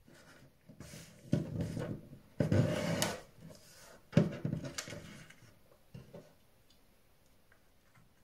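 A sheet of paper being folded and its crease pressed flat by hand, rubbing and sliding on a wooden tabletop in several short bursts, the last sharp one about four seconds in.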